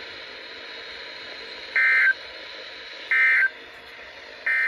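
Three short bursts of EAS/SAME digital data tones (the end-of-message code), a rapid warble about a second apart, over a steady radio hiss: the signal that closes the alert.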